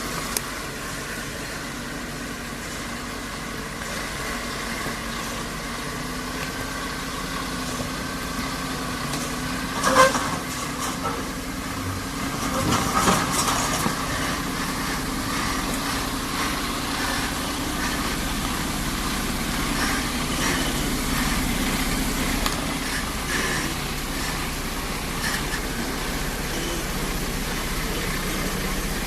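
Logging truck's engine running steadily, with a short sharp loud sound about ten seconds in and a brief louder stretch soon after.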